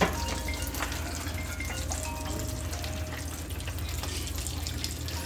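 Hot grease in a deep fryer sizzling steadily around frying burritos, with a sharp click right at the start.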